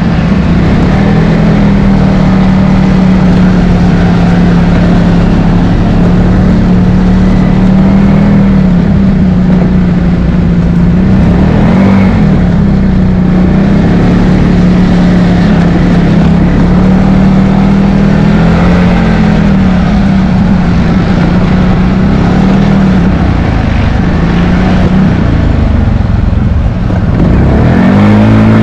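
ATV engine running steadily while riding, its pitch holding with slight rises and dips, then climbing near the end as the throttle opens. A steady hiss of tyres and wind runs underneath.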